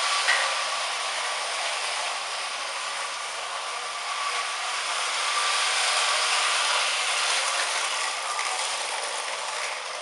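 Lionel Standard Gauge #400E toy steam locomotive running on tinplate track: its electric motor and gears whir steadily as the wheels roll, the sound swelling and easing a little as it circles the oval. A brief click comes just after the start.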